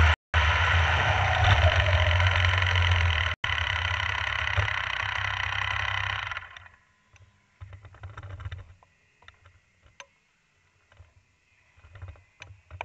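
Rotax Mini Max two-stroke kart engine running steadily, then dying away and stopping about six and a half seconds in. After it stops, only faint scattered knocks and rustles remain.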